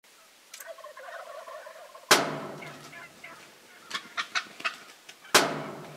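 Wild turkeys calling: two loud gobbles, about two seconds in and again near the end, with softer calls before the first and a few short sharp calls between them.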